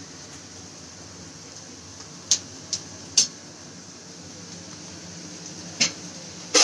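Steady low room hum with a few short, sharp clicks: three in quick succession a little over two seconds in, and another near the end.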